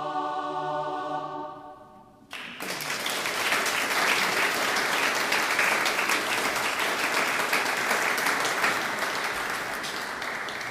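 A shape-note choir holds its final chord, which dies away about two seconds in; then the audience breaks into applause, the louder of the two, easing off near the end.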